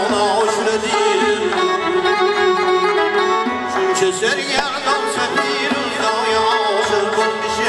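Live Central Asian folk ensemble playing: a frame drum (doira) keeps the beat under a bowed spike fiddle (ghijak) and a long-necked lute, carrying a wavering, ornamented melody.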